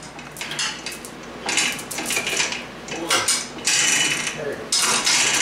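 Metal tools and parts clinking and clattering in irregular bursts, with some short metallic ringing, louder in the second half.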